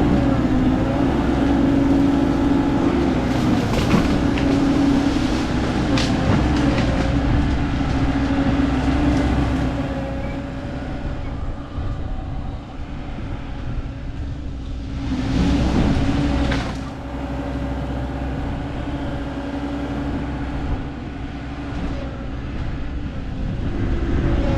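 Heavy machinery engine running steadily under load, with a few sharp knocks and a rushing, noisier stretch about two-thirds of the way through.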